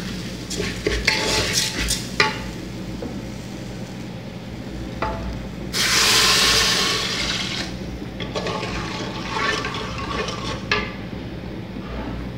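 A wooden spoon stirring and scraping rice as it sautés in an aluminium pressure cooker. About six seconds in, water is poured onto the hot rice with a loud rushing hiss that lasts about two seconds, then dies down.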